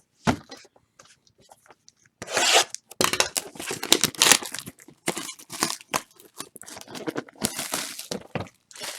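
Packaging on a box of football trading cards being torn open: repeated ripping and crinkling of wrapper, starting about two seconds in.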